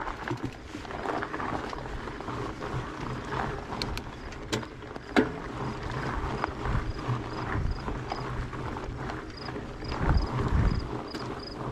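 Surly Ice Cream Truck fat bike climbing a dirt trail: its 4.8-inch knobby tyres rolling over packed dirt, with scattered clicks and knocks, and wind buffeting the microphone in heavier gusts near the end.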